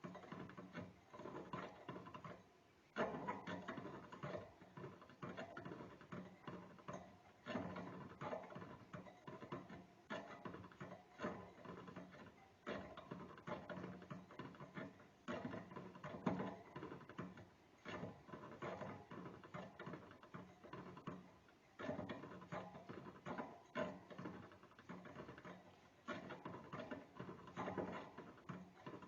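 A small rodent gnawing: rapid dry scratching clicks in bursts, broken by short pauses.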